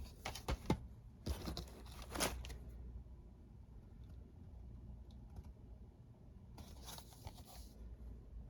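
Packaging being torn and crinkled open by hand, in three bursts: at the start, from about one to two and a half seconds in, and again about seven seconds in.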